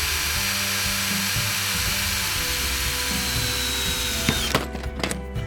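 Power drill boring a hole through a metal foot-rest plate, running steadily with a high whine, then stopping about four and a half seconds in once the bit is through.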